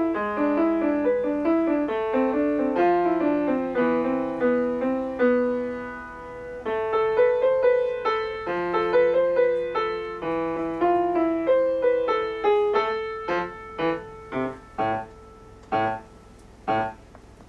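Solo piano playing a flowing melodic passage, then ending the piece with about five short, detached chords separated by brief pauses.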